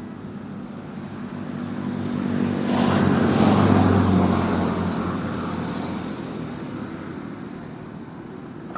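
A motor vehicle passing by: its engine hum and rushing noise swell to a peak about three to four seconds in, then fade away.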